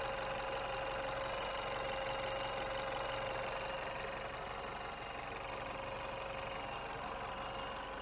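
Chevy Malibu's 1.5-litre turbocharged four-cylinder engine idling steadily with a newly replaced vacuum pump, a constant whine sitting over the idle.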